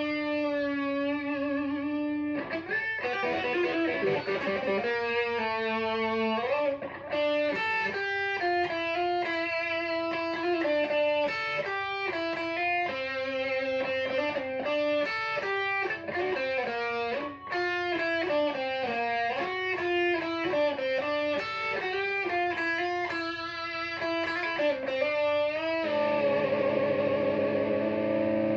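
Electric guitar played through the Boulevard Effects 3 in 1 preamp/compressor pedal, with compressed crunch and long sustain, into a vintage Roland Cube 60 amp. Single-note riffs with vibrato on held notes, settling near the end onto a long held, wavering note.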